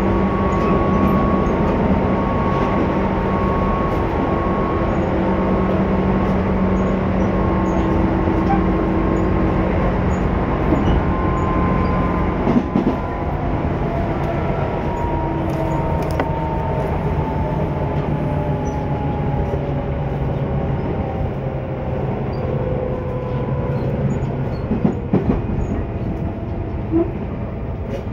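Tobu 10030 series electric train running, heard from inside the car: steady running noise with a motor and gear whine that slowly falls in pitch as the train slows. Occasional knocks from the wheels over rail joints come about halfway through and again near the end.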